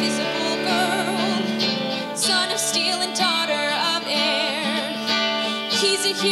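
A musical-theatre song: a female voice holding notes with vibrato over band accompaniment with guitar.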